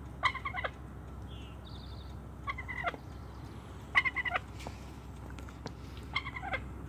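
Wild turkey tom gobbling: four short, rattling gobbles, each about half a second long, coming roughly every two seconds.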